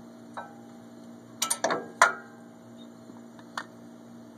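Worn brake pads and caliper bracket hardware clinking against metal as they are handled and set down. A few short, ringing clinks come in a quick cluster about one and a half to two seconds in, the loudest at the end of it, and a single clink follows near the end.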